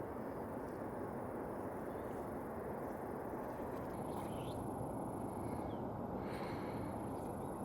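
Steady rushing noise of the Bow River's flowing water, even and unbroken, with no distinct events.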